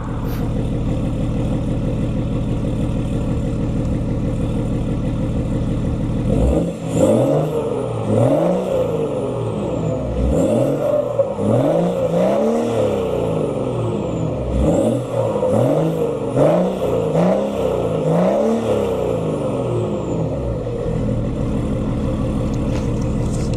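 BMW M57 straight-six turbodiesel idling, then blipped repeatedly in short revs, each rising and falling back, before settling back to idle. A faint high whistle falls away after several of the revs.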